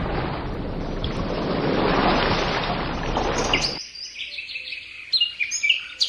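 Sound-machine nature recordings: a steady wash of ocean surf cuts off sharply a little under four seconds in. It gives way to the forest track, birds chirping in quick repeated calls.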